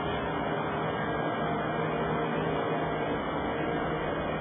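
Steady hum with an even hiss underneath, unchanging throughout.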